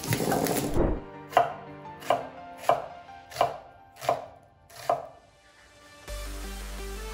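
A chef's knife slicing red onion on a wooden cutting board: after a denser flurry in the first second, six slow, evenly spaced cuts, each blade striking the board. The cuts stop about five seconds in.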